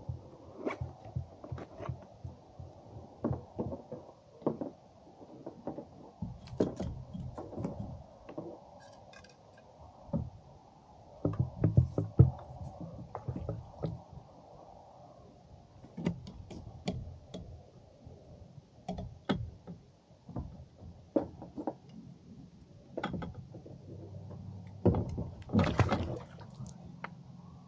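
Irregular knocks, taps and thumps scattered throughout, with the loudest cluster about a third of the way in, over a faint steady low hum.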